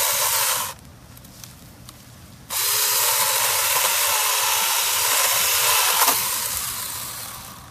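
A 21-volt SeeSii 6-inch cordless mini chainsaw running and cutting through branches, loud and even. It stops abruptly about a second in, starts again about two and a half seconds in, and dies away over the last second or two.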